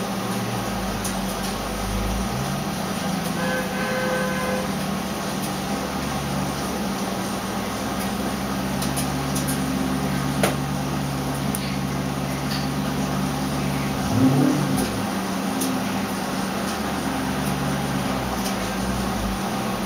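406 cubic inch small-block Chevy V8 running steadily on an engine dyno, with one quick rise in engine speed about fourteen seconds in.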